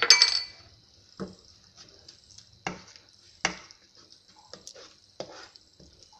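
A spoon knocking and scraping in a cooking pan as a sauce of onions, soy, tomato and chilli sauces is stirred: about five sharp, irregular knocks over a faint steady hiss.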